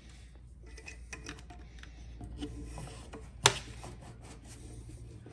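Hands working a canvas hood's rope around a metal hood bar and onto a rope hook: quiet rubbing and rustling with small scattered clicks, and one sharp click about three and a half seconds in.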